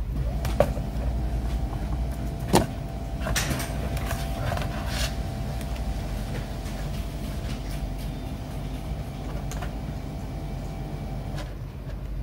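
Sharp plastic clicks from a laptop keyboard being handled and fitted: one about half a second in, a louder one about two and a half seconds in, then lighter ticks. A steady low hum with a faint steady tone runs underneath, the tone stopping about a second before the end.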